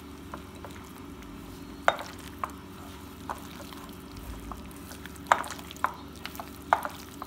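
Raw chicken pieces squelching as they are kneaded by hand in a coating of beaten egg, cornflour and flour. The sound is an irregular run of wet, sticky squishes and clicks over a steady low hum.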